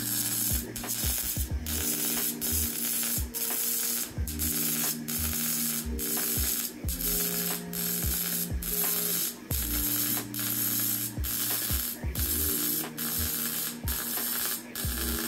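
MIG welder arc crackling as a seam is welded on steel exhaust pipe, in a string of short bursts broken about every three-quarters of a second.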